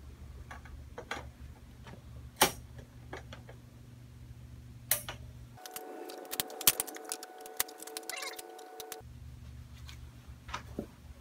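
Scattered clicks, knocks and clinks of grow-tent frame poles being handled and slotted together, over a steady low hum. For about three seconds past the middle the hum drops away, and a quicker run of clicks sits over a thin steady tone.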